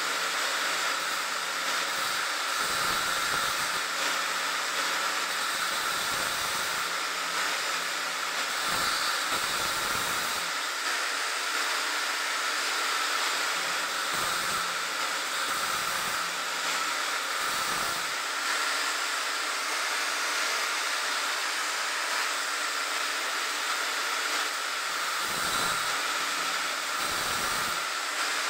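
Angle grinder running steadily under load, cutting into a steel trailer-hitch beam: a constant high whine over a broad hiss, with brief deeper surges every few seconds as the disc bites.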